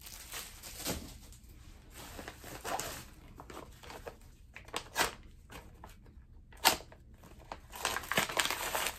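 Crinkling and tearing of a padded paper mailer being cut and pulled open by hand, in scattered bursts, with a few sharp clicks past the middle.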